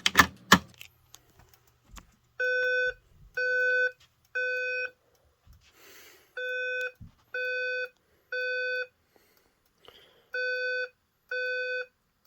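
Simplex fire alarm speaker sounding a low evacuation beep in the temporal-three pattern: three half-second beeps, a pause, and again, three rounds in all. Two sharp clacks come right at the start.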